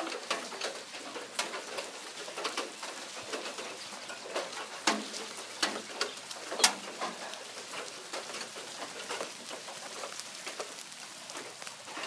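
Big, scattered raindrops falling at the start of a storm: irregular sharp taps as single drops strike, over a light steady hiss of rain.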